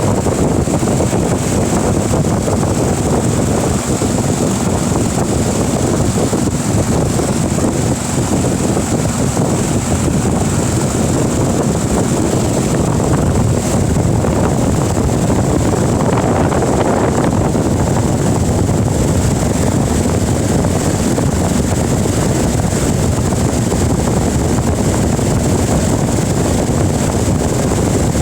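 Steady, unbroken rain noise.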